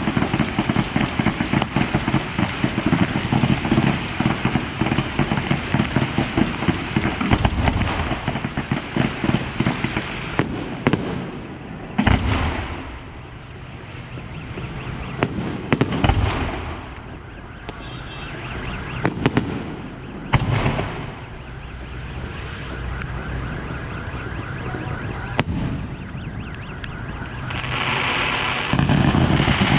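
Fireworks going off: about ten seconds of dense, rapid crackling reports, then single loud bangs with echoing tails about twelve, sixteen and twenty seconds in, with fizzing crackle between them. The bangs build back into a dense barrage near the end.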